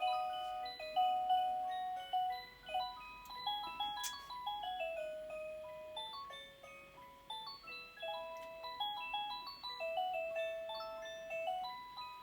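A battery quartz cuckoo clock's built-in electronic melody playing a simple tune of single notes, each one ringing briefly and fading.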